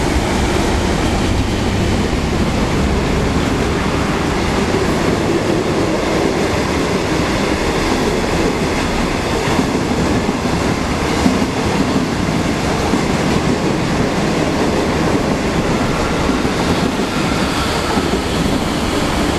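Express passenger train of 25Z coaches passing at speed: a steady rumble and rush of wheels on rail, with a few faint clicks.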